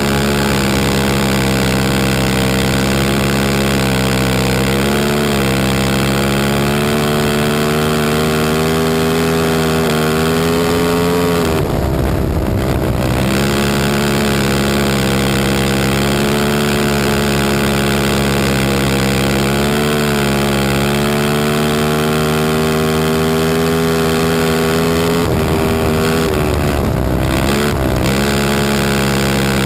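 2004 Honda TRX450R quad's single-cylinder four-stroke engine running hard at high revs. Its pitch dips briefly as the throttle is eased, most clearly about 12 seconds in and again around 25 to 28 seconds, then climbs back. A steady rush of noise runs underneath.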